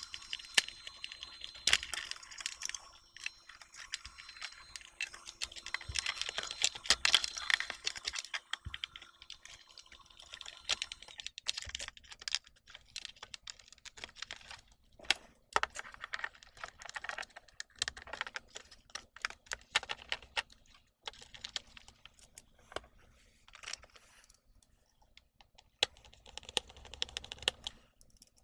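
Irregular clicks and taps of small parts and the casing being handled during reassembly of a Revitive foot circulation machine. The clicks are densest in the first several seconds and thin out later.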